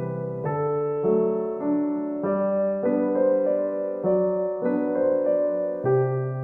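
Background music: soft electric-piano chords and melody, with the notes changing every half second or so.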